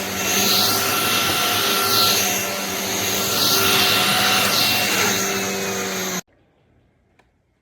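Shark cordless stick vacuum running, a steady motor whine under rushing air that swells and fades about once a second. It cuts off abruptly about six seconds in, leaving near silence.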